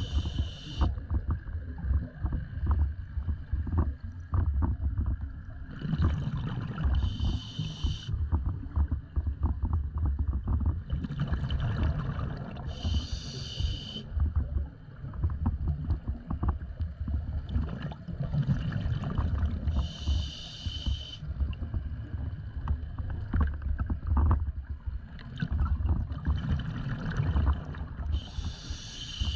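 Scuba diver breathing through a regulator, heard underwater: a hissing breath about every six to seven seconds, with the crackling, gurgling rush of exhaled bubbles in between.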